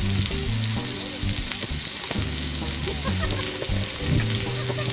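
Beef steak searing in a small cast-iron pan over a mini tabletop brazier: a steady frying sizzle with fine crackles and spits throughout.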